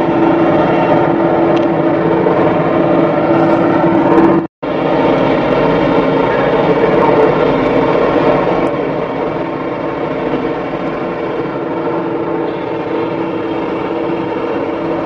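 Diesel engine of a JCB tracked excavator running steadily, a continuous drone with a strong steady tone. The sound cuts out completely for a split second about four and a half seconds in, then carries on.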